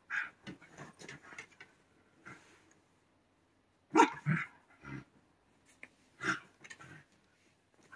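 A Shiba Inu giving a few short barks and grumbling growls, the loudest a pair about four seconds in and another just after six seconds, with scuffling on the futon in between.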